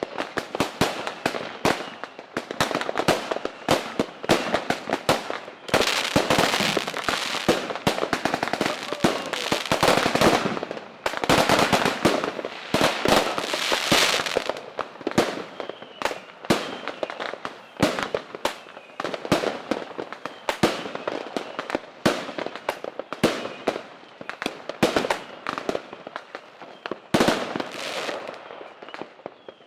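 Fireworks going off: a dense, rapid run of sharp cracks and pops from crackling fireworks, thickest for several seconds in the middle and again briefly near the end.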